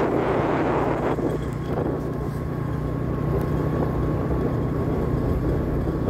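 Engine of a moving vehicle running steadily, with wind rushing over the microphone and a faint steady whine from about a second in.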